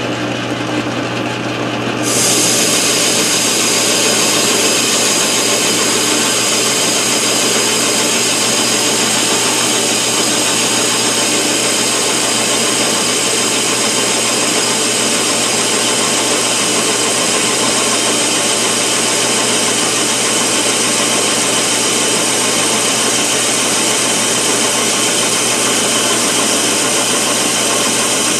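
Metal lathe running, with a carbide-insert tool taking a 50-thousandths-deep turning cut on the spinning workpiece. The cutting noise comes in about two seconds in and then holds steady over the lathe's hum.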